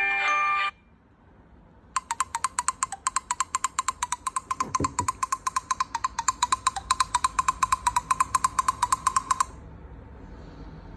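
Nokia 301 mobile phone playing ringtones: the end of a melodic chime tune cuts off just under a second in, then after a short pause a ringtone of rapid, evenly spaced clicking beeps at one pitch runs for about seven seconds.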